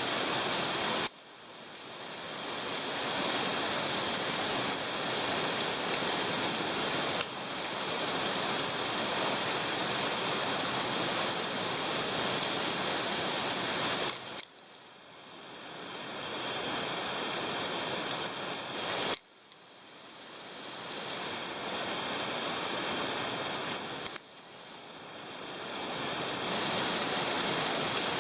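Hot-spring water falling in a small waterfall, a steady splashing rush. The sound drops away abruptly several times and swells back over a few seconds each time.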